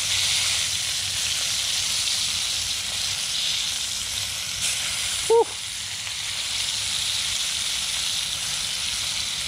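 Flour-coated flathead fillets sizzling in hot oil in a frying pan as they are turned with tongs, a steady frying hiss. A brief pitched chirp about five seconds in is the loudest moment.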